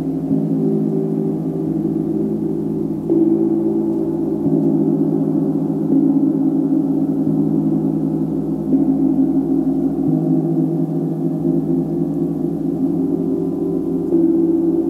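Sustained, layered ringing tones forming a low drone, with the pitches shifting and new tones coming in every few seconds.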